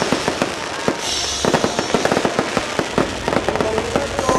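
Fireworks bursting in rapid succession: a dense run of sharp bangs and crackles.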